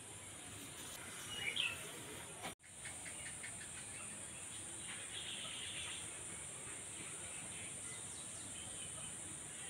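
Faint background hiss with a few short bird chirps, clearest about a second and a half in. The sound cuts out for an instant about two and a half seconds in.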